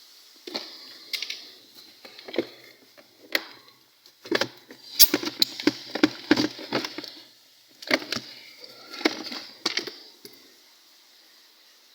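Irregular clicks, knocks and scraping of hand work inside a refrigerator that is packed with ice, busiest in the middle and again shortly after, then falling quiet near the end.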